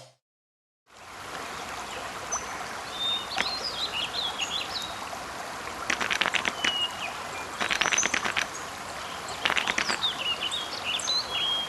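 Nature ambience: birds chirping over a steady water-like hiss, starting after a moment of silence. It includes three short rapid rattling calls.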